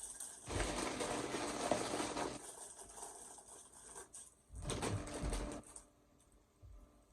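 A woman burping twice: a long, rattling belch starting about half a second in, and a second one about four and a half seconds in.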